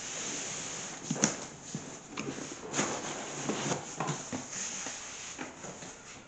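Cardboard lid being slid and lifted off a long cardboard box, with cardboard scraping and rubbing and a few sharp knocks, the sharpest about a second in.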